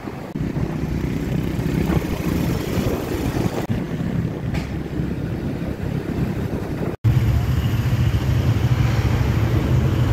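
Motorcycle traffic heard from a moving motorbike: engine and road noise. After an abrupt cut about seven seconds in, a steadier low engine hum from motorbikes waiting in traffic.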